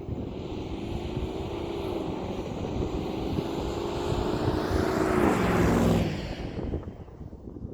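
Range Rover P38's V8 engine accelerating under load, its note climbing slowly for about five seconds, then dropping sharply as the engine falls away near the end, with road and wind noise throughout.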